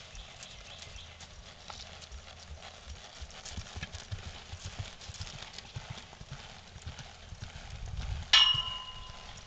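Ridden horse's hooves thudding on soft dirt in an uneven clip-clop. About eight seconds in there is a single sharp metallic clang that rings for about a second, the loudest sound here.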